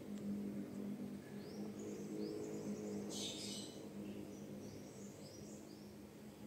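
Small birds chirping faintly in short, high, rising notes, in two little runs, over a steady low hum, with a brief hiss-like rustle about halfway through.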